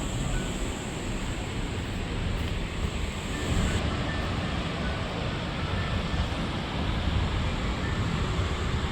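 Wallaman Falls plunging into its pool: a steady, dense roar of falling water, with low buffeting on the microphone.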